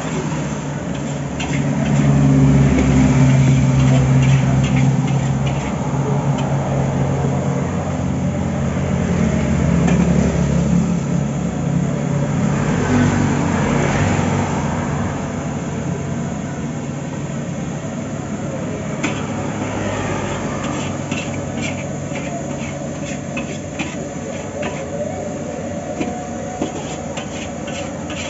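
A metal spatula scrapes and clanks against a steel wok as fried noodles are stir-fried, with quick repeated clanks in the second half. Under it runs a steady low rumble, loudest in the first third.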